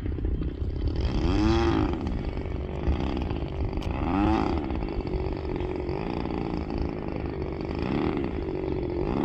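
DLE 20cc single-cylinder two-stroke gasoline engine of a 2 m RC airplane idling while the plane taxis on the ground. Its pitch rises and falls twice, about 1.5 and 4 seconds in, as the throttle is blipped up and back down.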